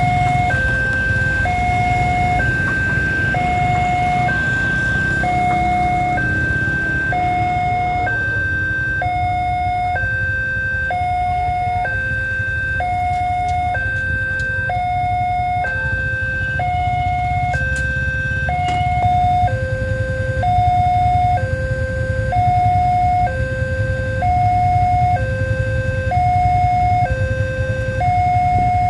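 Railway level-crossing electronic warning alarm, alternating a high and a low tone about a second each, repeating steadily: the crossing is closed for an approaching train. A low rumble runs underneath.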